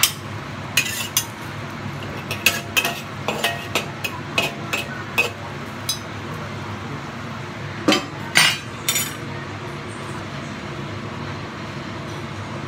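Metal spatula clinking and scraping against a wok while stir-frying, a quick run of sharp clinks over the first five seconds. A few louder metal clanks come around eight to nine seconds in as the domed stainless-steel lid goes onto the wok, all over a steady hiss.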